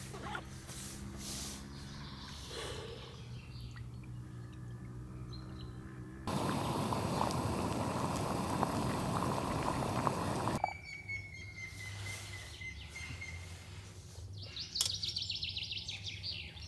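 Wild birds calling and singing: scattered chirps, a long slightly falling whistled note, and a fast high trill near the end. A loud, even rushing noise cuts in abruptly about six seconds in and stops just as suddenly some four seconds later.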